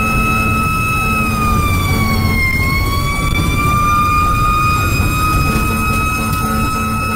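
Fire engine siren sounding as the truck drives, held at one high pitch that dips briefly about two and a half seconds in and climbs back, over the low rumble of the truck's engine and road noise heard from inside the cab.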